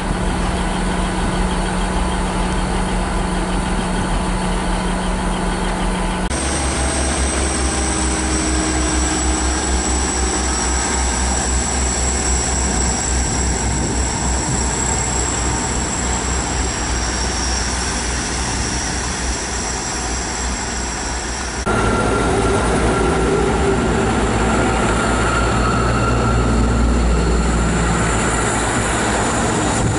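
Diesel multiple-unit trains (British Rail Class 158 and Class 159) running at a station platform, in three shots joined by sharp cuts about six seconds in and again past twenty seconds. A steady low engine hum comes first, then a high steady whine over the train's rumble, then louder running noise.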